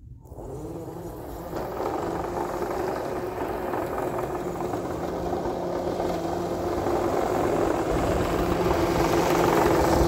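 Radio-controlled Kyosho Blizzard snowcat with a worm-gear transmission driving over snow: its electric drive motors and gears make a steady hum that grows louder as it comes closer.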